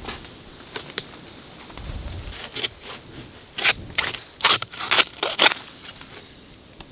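A young bamboo shoot being hacked off at its base with a hand blade: a series of sharp cracking chops and scrapes, a few at first, then a quicker run of louder ones in the second half.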